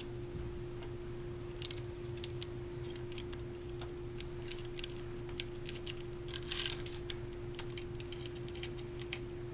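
Scattered small metallic clicks and light rattles from a mountain bike derailleur and its shift cable being handled and threaded, with a denser clatter about two-thirds of the way through, over a steady background hum.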